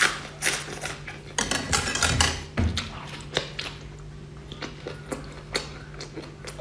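Close-up eating sounds: wet biting, chewing and sucking on soft food, with irregular sharp smacks and crackles. A steady low hum runs underneath.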